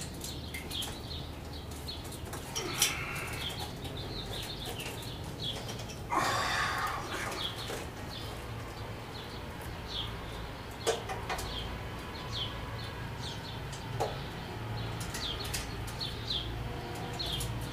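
Small birds chirping again and again, short falling chirps, with sharp metallic clicks of hand tools on the Harley-Davidson's rocker box bolts: the loudest about three seconds in, with a brief rasp around six seconds in and more clicks later. A low steady hum lies underneath.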